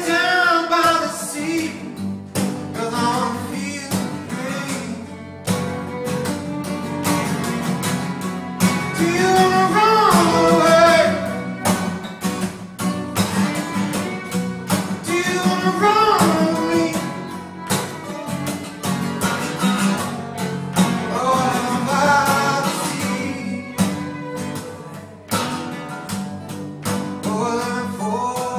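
Live acoustic folk trio of two strummed acoustic guitars and a fiddle playing a song together. A melody line comes in phrases every few seconds over the steady strumming.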